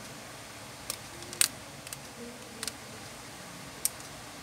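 Rubber bands snapping against a phone's frame as they are stretched around it to clamp a freshly glued screen: five short, sharp snaps, the loudest about a second and a half in.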